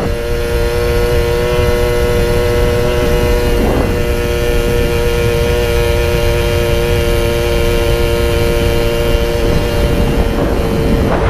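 Puch Maxi Luxe moped's stock 50cc two-stroke engine running at a steady cruise through a Puch Radical sidebleed expansion pipe with the end bleed blocked off, a steady high-pitched drone. Wind rushes on the microphone underneath, with a brief swell of noise about four seconds in.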